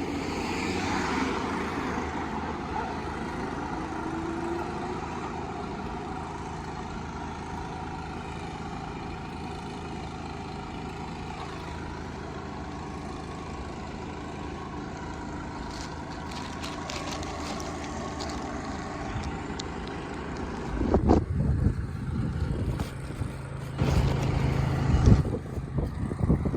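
Street traffic: a steady rumble of vehicles going by, with louder passing rumbles about three quarters of the way through and again near the end.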